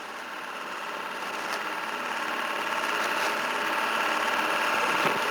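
A steady mechanical buzz, like a motor or engine running, growing gradually louder throughout.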